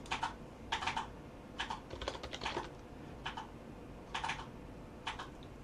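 Computer keyboard typing in short bursts of keystrokes with pauses between, as a login password is entered at the sign-in screen.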